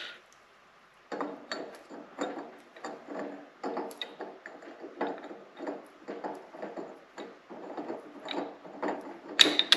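Steel splined transmission parts clicking and rubbing: an overdrive sun gear and hub are twisted back and forth by hand to line up and seat their splines in the overdrive clutch pack. A quick run of short clicks, about two to three a second, with a sharper clack near the end.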